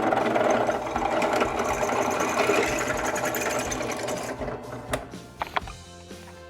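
Electric drill with an HSS bit cutting through a mild-steel bracket, run dry without cutting fluid, for about four seconds before it winds down, followed by a couple of clicks.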